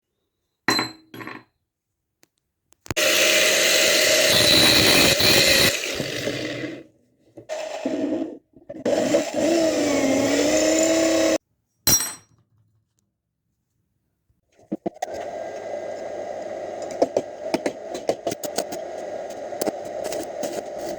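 An electric power tool runs in several short bursts with abrupt starts and stops. Its motor pitch dips and recovers about ten seconds in, as if loaded by the cut. From about fifteen seconds a steady motor hum runs under repeated sharp scraping clicks, typical of a tool working the grille material.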